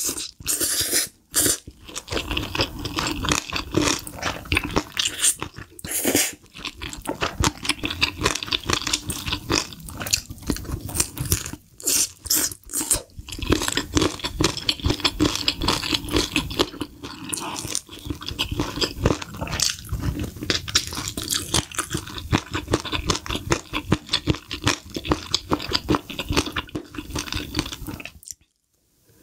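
Close-miked eating: wet, crunchy chewing and biting of sauce-coated fried chicken and spicy cream noodles, dense and continuous. The sound cuts off abruptly about a second before the end.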